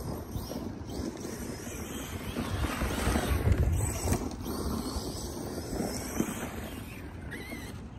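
ARRMA Big Rock 6S electric RC monster truck driving hard through loose dirt and sand, its motor and spinning tyres heard at a distance, with wind on the microphone; the sound swells to its loudest about three and a half seconds in.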